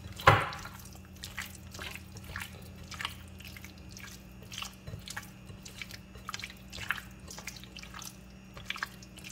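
Bare hands squeezing and turning raw chicken pieces in a wet cornflour marinade in a glass bowl: irregular soft wet squelches, with one louder slap just after the start.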